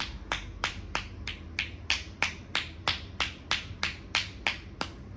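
Hands slapping a bare thigh in quick percussive sports-massage strokes (tapotement), a sharp slap about three times a second, stopping just before the end.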